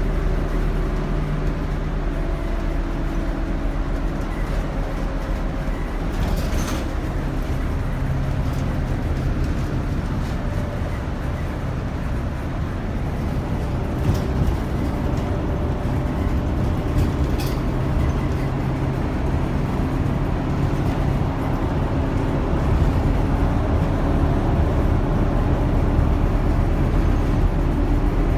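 Steady engine drone and road noise of a New Flyer transit bus driving at highway speed, heard from inside. A few brief clicks or rattles come through, the clearest about six seconds in.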